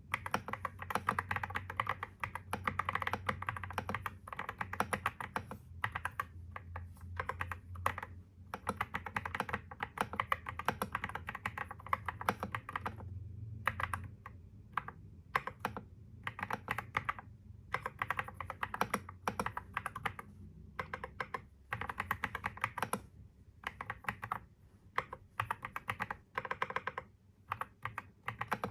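Typing on a computer keyboard: fast runs of keystrokes broken by short pauses. A low hum sits underneath for the first half and then stops.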